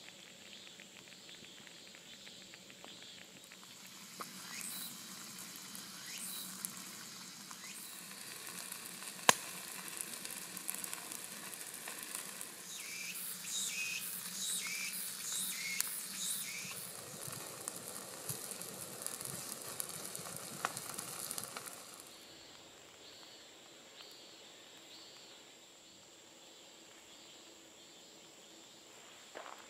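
Burning lump charcoal crackling, and the leaf-wrapped mackerel under it sizzling in a cast-iron skillet. There is a sharp pop about nine seconds in and another near twenty-one seconds, and the crackle dies down to a faint hiss for the last several seconds.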